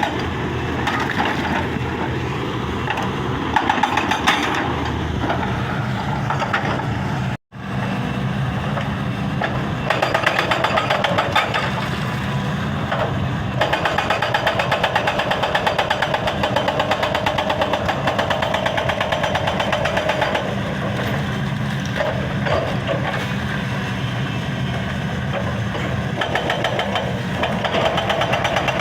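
Excavator-mounted hydraulic breaker hammering rock in rapid, evenly spaced blows over the excavator's running diesel engine; the hammering comes in spells that start and stop. The sound cuts out completely for a split second about seven seconds in.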